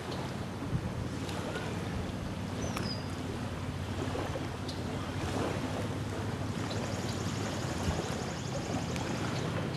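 Small lake waves lapping along the sandy shore, with wind on the microphone and a steady low drone underneath. A few short bird chirps come through.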